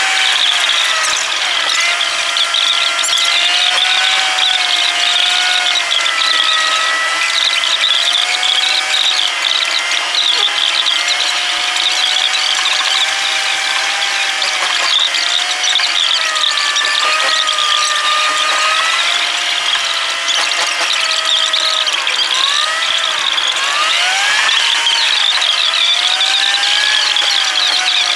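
Car's engine and road sound played back sped up, so the engine drone becomes a high, wavering whine that rises and falls with engine speed. Near the end come a few quick rising sweeps as the engine revs up.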